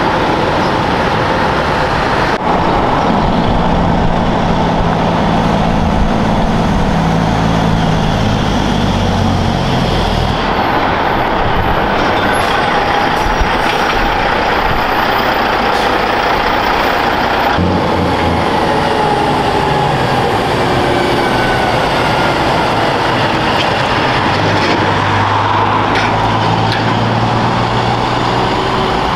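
Heavy diesel trucks driving past one after another: engines running and tyres rolling on the road. The engine note rises and fades with each truck, and the sound changes abruptly a few times.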